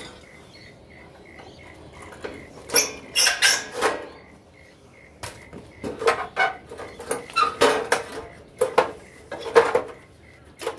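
Sheet-metal panel of an air-conditioner condenser clanking and rattling as it is worked loose and pulled off by hand. There is a short run of knocks about three seconds in and a denser stretch of clanks over the last five seconds.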